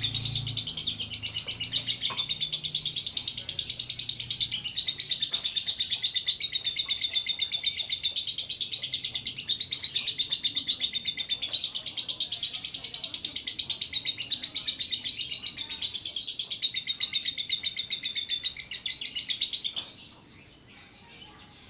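Caged lovebird chattering in one long, rapid, high-pitched trill without a break, which stops abruptly near the end. The keeper calls the bird 'konslet', an overexcited, nonstop chatterer.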